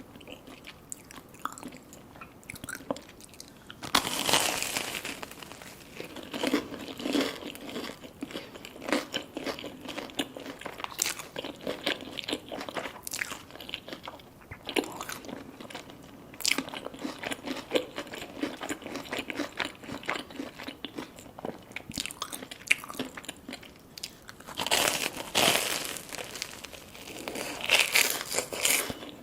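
Close-miked crunching bites and chewing of crispy fried food, with loud crackly crunches about four seconds in and twice near the end and softer wet chewing between.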